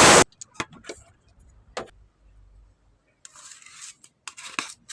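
Sanding noise on car body filler that stops abruptly just after the start, followed by scattered clicks and taps of tools being handled and a brief hiss about three seconds in.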